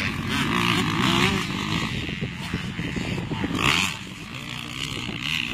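Motocross dirt bike engine revving, its pitch rising and falling with the throttle, loudest about a second in and again briefly just before four seconds.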